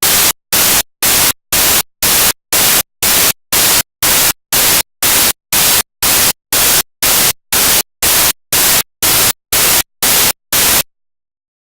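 Loud bursts of static hiss in a Panasonic GH4's audio recording, pulsing on and off about twice a second with dead silence between them, then cutting off suddenly near the end. This is the camera's audio fault: the sound drops out and static takes its place.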